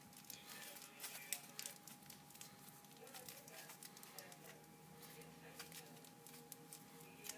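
Aluminium foil being squeezed and pressed into shape by hand, giving faint, irregular crinkles and crackles.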